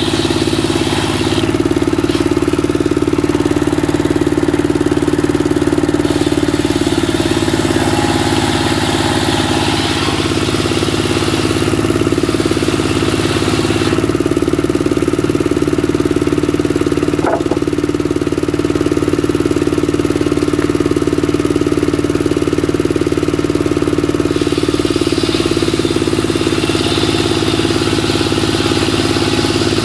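Single-cylinder Dongfeng diesel engine running steadily at a constant speed, driving a circular wood saw.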